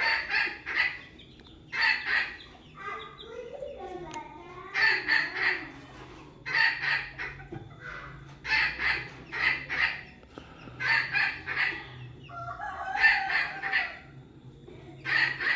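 Kate jali bantam chickens calling: short clusters of rapid clucks repeated about every two seconds, with a lower wavering call twice.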